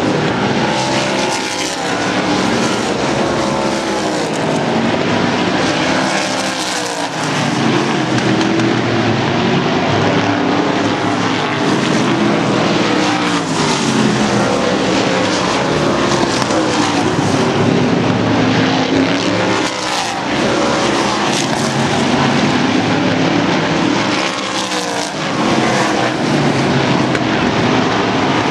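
Race car engines at speed, running loud without a break, their pitch rising and falling again and again as cars pass by.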